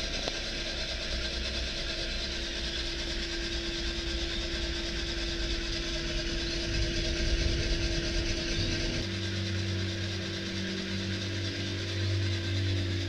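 Heat gun and bread machine of a home coffee roaster running steadily mid-roast, a steady whooshing hiss with a constant mid-pitched hum as the beans heat past 155 °C toward 185 °C; a deeper hum joins about nine seconds in.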